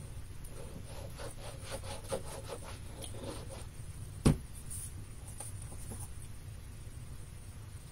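A bottle of liquid craft glue being handled over paper: a run of soft clicks and rubs, about four a second, then one sharp knock about four seconds in as the bottle is set down on the table.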